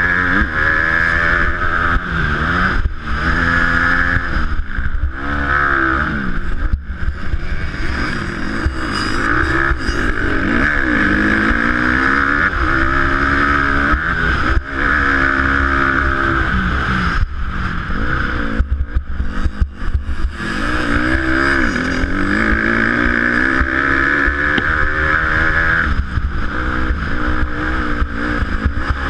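Honda dirt bike's engine revving up and falling back again and again as the rider shifts and rolls on and off the throttle, with brief dips where the throttle is chopped. A steady rush of wind and track noise sits on the helmet-mounted camera's microphone.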